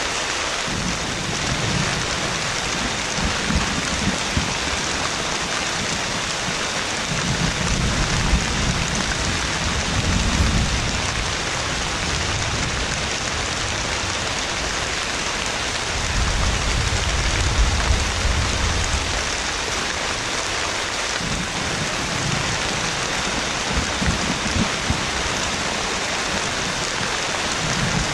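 Heavy rain falling steadily, with low rolls of thunder rumbling in several times.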